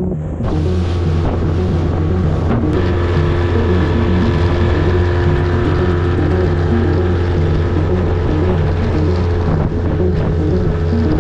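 Outboard motor of a small inflatable boat running steadily under way, with wind on the microphone; it comes in suddenly about half a second in.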